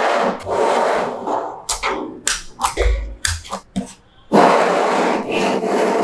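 Hands rubbing and pressing a slab of small magnetic balls on a hard table: a gritty scraping rustle broken by sharp clicks as the balls shift and snap against each other, with a low thump near the middle.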